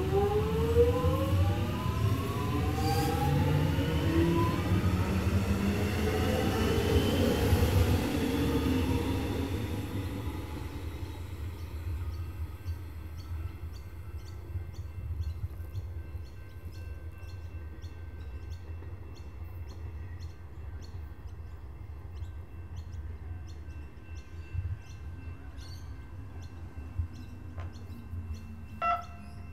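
Electric suburban train accelerating away from the platform, its traction motors whining in several rising tones for about the first ten seconds before fading. After that it is quieter, with a string of faint clicks and a low hum falling in pitch as another train draws in.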